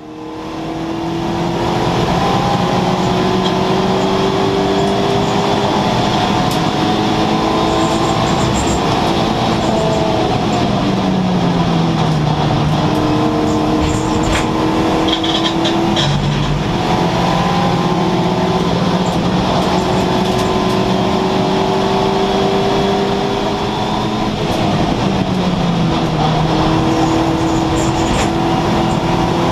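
Race car engine heard from inside the cabin on track, running hard and holding high revs, with a few spots where the pitch falls away as the driver lifts and changes down, under loud road and wind noise. The sound fades in over the first couple of seconds.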